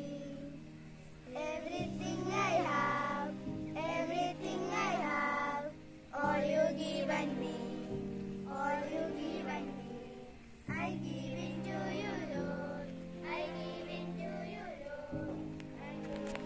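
Group of children singing a prayer song in unison, in phrases of a few seconds, over steady held accompaniment chords that shift every few seconds.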